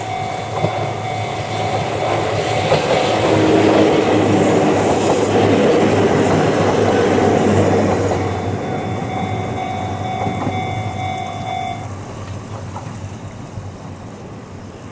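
Ohmi Railway electric train running past on the track and drawing away, wheels rumbling and clattering over the rail joints. The noise is loudest in the middle and fades steadily over the last few seconds.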